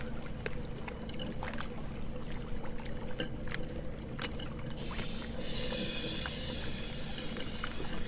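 Steady low engine hum with water noise, as from a boat at sea, broken by scattered sharp clicks; a brief hiss comes in about five seconds in.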